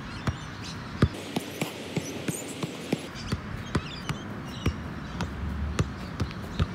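Soccer ball being juggled with the feet: a steady run of light thuds, about three touches a second.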